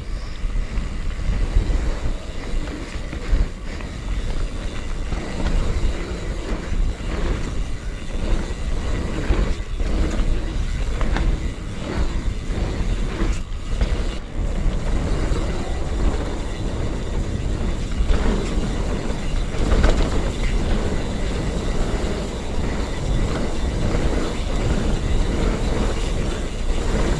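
Canyon Spectral full-suspension mountain bike descending fast on a dirt trail: a continuous low rumble of tyres and wind on the microphone, with frequent short rattles and knocks from the bike over bumps and roots.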